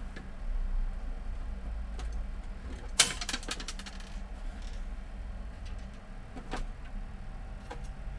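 Clicks and clatter of plastic parts being handled on an opened printer: a sharp clack about three seconds in, followed by a quick run of rattling clicks, with a few single clicks later over a low hum.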